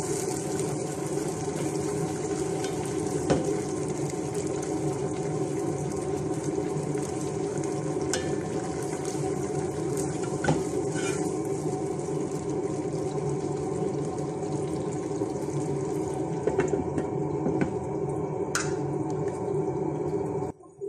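Chicken and vegetables sizzling in a deep frying pan while a wooden spatula stirs and scrapes through them, with a few sharp knocks of the spatula on the pan, over a steady hum. The sound cuts off suddenly just before the end.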